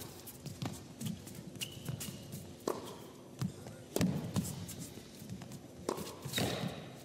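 Tennis rally: a ball struck back and forth by rackets, about five sharp hits spaced a second or two apart, with the players' footsteps on the court between them.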